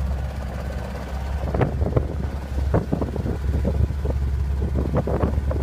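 Small open motorboat's engine running steadily at speed, with irregular sharp bursts of wind and splashing over choppy water from about a second and a half in.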